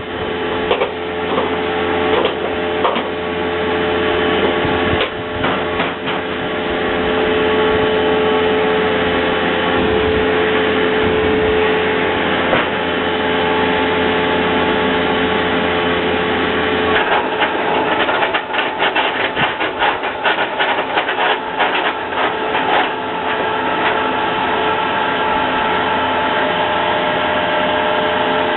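Wood-gas-fuelled Toyota 22R engine running steadily, driving a three-phase induction motor as a generator, with a steady whine over its hum. About two thirds of the way in the low hum and the whine drop, and a few seconds of rapid rattling clicks and knocks follow.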